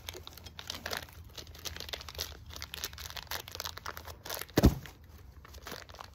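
Plastic packaging crinkling and tearing in short crackles as a pipe fitting is unwrapped by hand, with one dull thump about four and a half seconds in.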